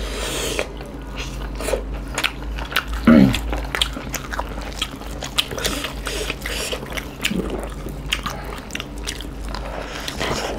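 Close-miked eating of beef curry and rice by hand: chewing on meat, with frequent wet mouth clicks and smacks.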